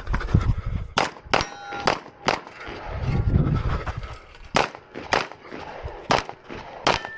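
Semi-automatic pistol fired in a quick string of about ten shots, roughly half a second apart, with a pause of about two seconds near the middle.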